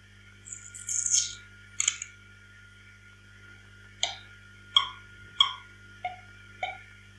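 A brief hissing whoosh, then a click, then a run of six short sharp clicks spaced about half a second to a second apart, over a steady electrical hum.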